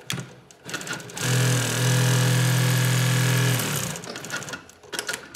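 Juki LU2828V-7 single-needle walking-foot industrial sewing machine sewing a short run at a steady speed for about two and a half seconds, its motor giving a steady hum. A few clicks come before it starts and after it stops.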